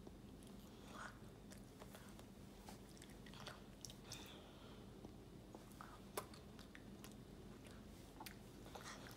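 Faint mouth sounds of a young child eating raspberries off his fingertips: scattered small wet smacks and clicks as he chews and sucks his fingers, over a low steady room hum.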